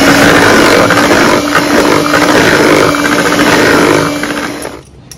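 Electric hand mixer running at a steady speed, its twin beaters churning a runny mixture of whipped cream and milk. The motor cuts off shortly before the end.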